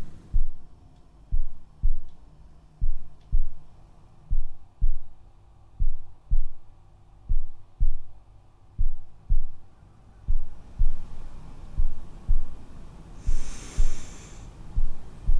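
Low double thumps in a slow heartbeat rhythm, lub-dub, repeating about every one and a half seconds. A short breathy hiss comes in near the end.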